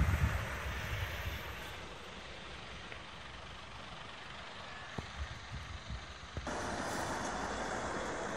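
Mitsubishi Fuso Super Great heavy truck with a lowbed trailer pulling away slowly. A low rumble fades in the first second, and about six and a half seconds in a steady hiss comes in suddenly and holds.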